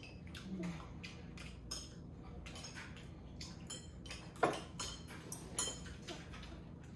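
Eating utensils clicking and clinking against dishes at a meal, in scattered light taps, with a sharper clink about four and a half seconds in and a couple more about a second later.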